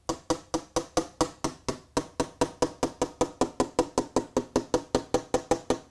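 A spoon tapping rapidly and evenly on model railway track, about seven taps a second, shaking loose ballast off the sleepers. The tapping stops near the end.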